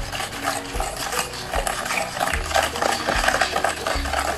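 A metal spoon stirring a thin soy-sauce mixture in a plastic bowl, scraping and clicking against the bowl over and over.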